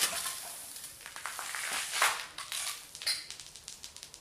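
Full aluminium beer can just punctured by a steel BB, hissing and crackling as carbonated beer sprays out and the can topples onto its side on a concrete block. There is a louder burst of noise about two seconds in, then the hiss and crackle fade to scattered faint clicks.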